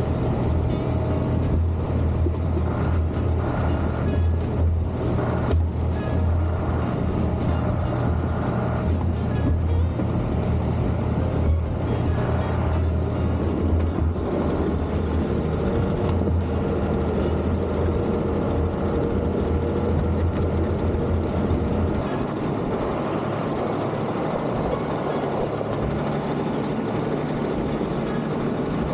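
Heavy diesel engine of snow-clearing farm equipment running steadily under working load; its low rumble drops off abruptly about 22 seconds in and the engine keeps running at a lighter pitch.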